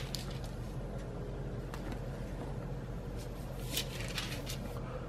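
A few soft rustles of book pages being leafed through, over a steady low room hum.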